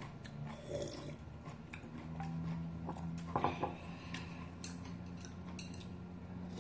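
Quiet eating at a table: scattered light clicks of chopsticks and spoons against bowls and small chewing noises, over a faint steady hum.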